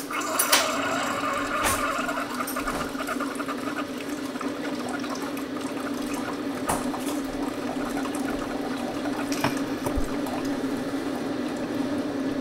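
Single-serve pod coffee maker brewing: its pump hums steadily while coffee streams into the mug, with a few sharp ticks along the way.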